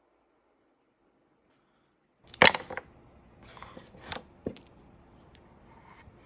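A loud sharp clack of hard objects about two seconds in, followed by a few more knocks and clicks and some light ticks near the end.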